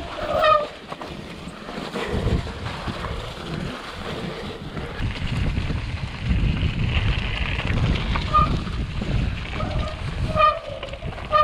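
Mountain bike rolling fast down a snowy forest trail: wind rushing over the action-camera microphone and the tyres and frame rumbling and rattling over the ground. A short pitched whine sounds near the start and again near the end.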